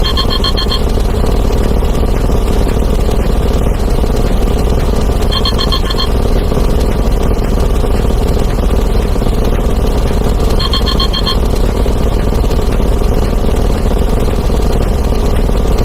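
A dense, continuous wall of overlapping sound effects layered into one steady loud roar. A short, rapidly pulsing ringing trill cuts through it three times, about five seconds apart.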